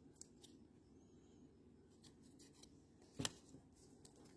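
Near silence with faint handling of trading cards, and one short scrape of a card being slid about three seconds in.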